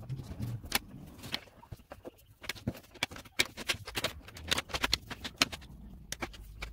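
Crayons and markers tapping and scratching on paper laid on a wooden table: irregular sharp clicks, several a second from about halfway in.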